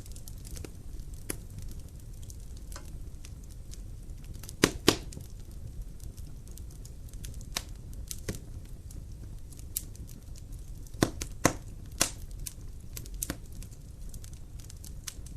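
Wood fire crackling in a fireplace firebox: irregular sharp pops over a low steady rumble, with a few louder cracks about five seconds in and again around eleven to twelve seconds.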